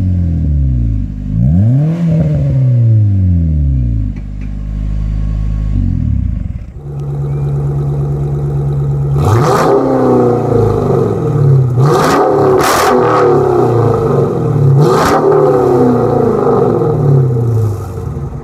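A Nissan Altima 2.4-litre four-cylinder with an OBX racing exhaust is revved in quick blips, its pitch rising and falling. About seven seconds in it gives way to a 2013 Dodge Charger R/T's 5.7-litre HEMI V8 through an SLP Loudmouth exhaust, idling and then revved sharply three or four times.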